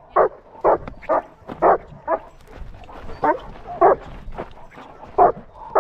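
A dog barking repeatedly in loud single barks, mostly about two a second, with a couple of short pauses between runs.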